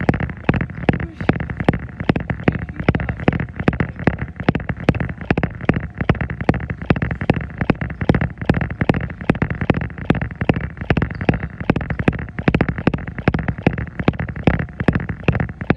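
Running footfalls on a treadmill belt, a quick even rhythm of about three steps a second, over the steady running hum of the treadmill.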